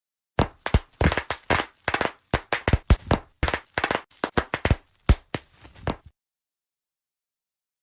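A rapid, uneven run of about twenty sharp pops and cracks, stopping after about six seconds: things bursting and cracking as they are crushed.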